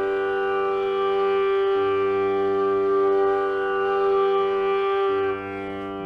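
Bamboo bass flute in G holding a long, steady Sa (G) over a digital tanpura drone on the same G, a tuning check of the flute's Sa against the drone. The flute note stops about five seconds in and the tanpura's cycling drone carries on alone.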